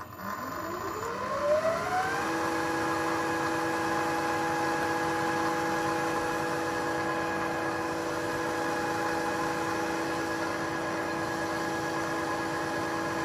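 Milling machine spindle starting up with a piloted cutter fitted, ready to cut a valve seat insert recess. Its whine rises over about the first two seconds, then the spindle runs steadily at speed.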